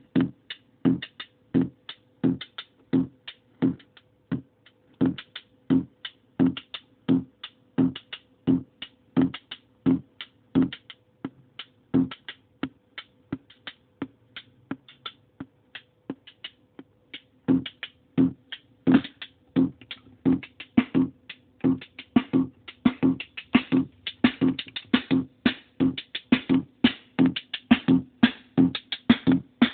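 Korg Monotribe drum pattern, mainly its analog bass drum, played through a circuit-bent Yamaha computer speaker whose side pots add gain and crunchy distortion as they are turned. A repeating beat of about two hits a second over a faint steady hum; about two-thirds of the way in the pattern gets busier and brighter.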